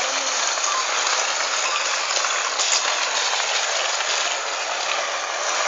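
A dried palm frond's sheath being dragged over rough paved ground under the weight of two small children, a steady hissing scrape.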